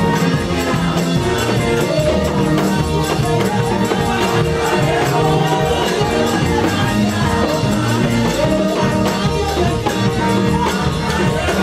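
Live church praise music: a singer over a band with a busy, steady percussion beat, played loud for the congregation to dance to.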